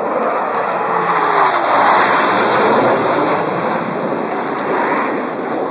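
Blue Angels F/A-18 Hornet jets passing overhead in formation: a loud, rushing jet roar that builds to a peak about two seconds in, then eases off.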